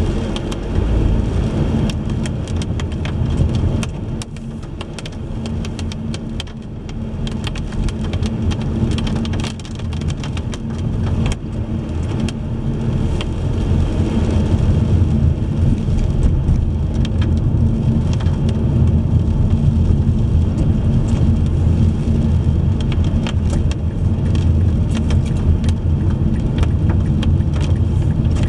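Car driving in the rain, heard inside the cabin: a steady low road and engine rumble with scattered raindrop ticks. The rumble eases a few seconds in, then builds back up and holds.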